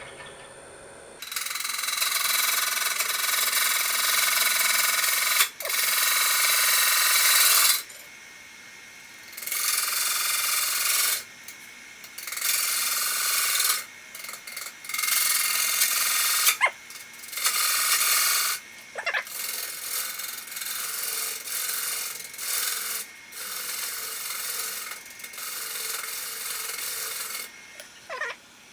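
Turning tool cutting a spinning cottonwood platter on a wood lathe: a run of hissing, scraping cuts a second to several seconds long with short pauses between, the longest and loudest in the first few seconds and lighter passes later. The wood is tearing out badly on one side.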